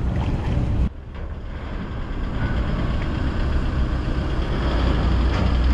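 Wind on the microphone for about the first second, then a small pickup truck's engine running at low revs as it drives slowly off a ferry ramp, a steady low rumble that grows louder near the end.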